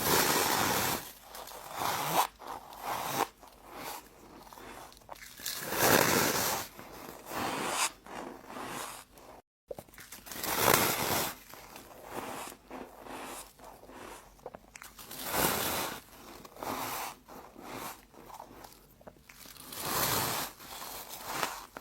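Humidifier ice being bitten and chewed close to the microphone: crunchy, crackly bites that come one after another every second or two. There is a brief cut to dead silence about halfway through.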